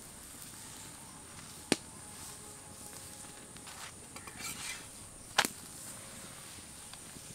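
Metal spatula clicking and scraping against an iron tawa while an aloo paratha fries in a little oil: two sharp clicks several seconds apart, with a few short scrapes between them over a low steady hiss.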